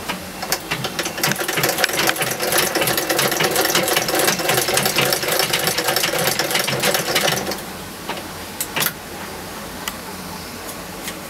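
Cobbler's long-arm shoe-repair sewing machine stitching leather with a rapid clatter of needle strokes and a steady hum. It runs for about seven seconds and then stops, leaving a few single clicks.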